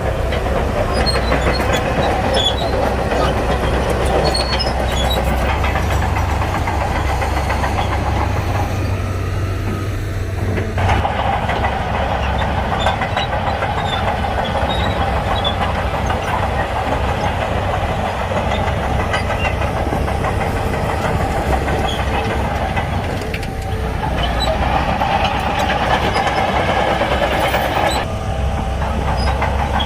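Shantui crawler bulldozer's diesel engine running under load with the clatter of its tracks, the engine note shifting a few times as the load changes.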